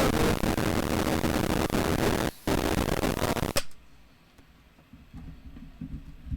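Loud, hiss-like noise from a cassette deck, dipping briefly and then cutting off suddenly about three and a half seconds in. A quiet low hum follows, with a sharp click at the very end.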